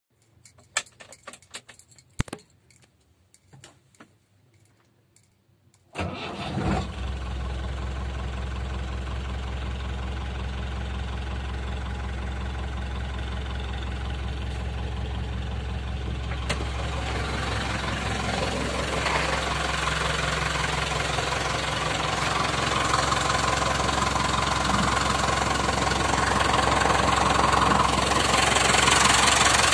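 A few light clicks, then a Chevrolet C10's Perkins diesel engine starts about six seconds in and settles into a steady idle, getting gradually louder toward the end.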